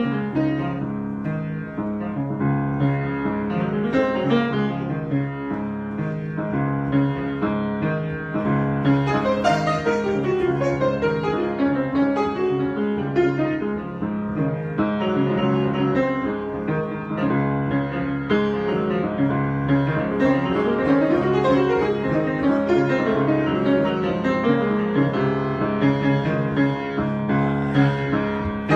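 Piano improvisation: a continuous flow of chords and melody notes over sustained low harmonies.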